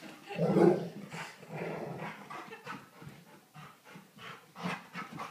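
A dog's agitated vocalising: a loud outburst about half a second in, then shorter growly and panting sounds. The dog is upset at someone sliding down the banister.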